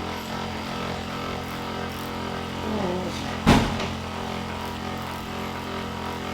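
A single sharp, loud crack from a chiropractic neck adjustment about halfway through, the joint cavitating as the head is turned to the right, over a steady low hum.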